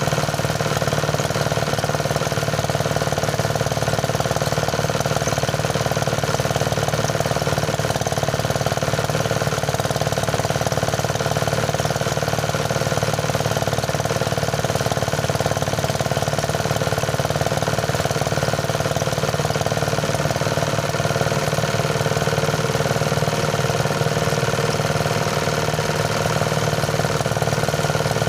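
Engine-driven rice thresher running steadily, its motor and threshing drum at a constant pitch and level.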